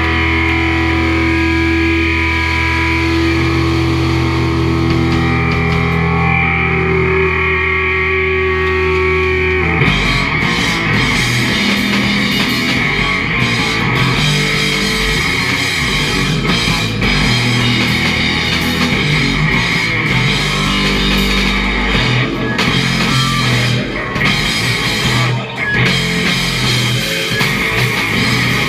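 Live heavy rock band with distorted electric guitar, bass and drum kit. For the first ten seconds, distorted chords ring out with no drums. Then the full band comes in hard, with fast drum hits under the guitars.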